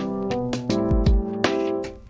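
Background music: pitched instrument notes changing over a regular beat of low drum hits.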